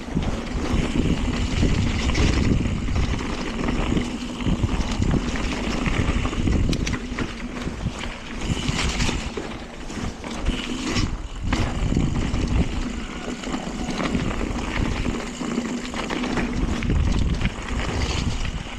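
A mountain bike riding down a wet, flooded forest trail: heavy wind buffeting the microphone over the rumble and rattle of the bike and its tyres on the rough ground.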